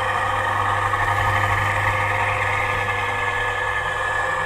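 Diesel engine idling sound from the sound decoder of a PIKO H0 class 364 model shunting locomotive, played through the model's small speaker: a steady hum with an even running note.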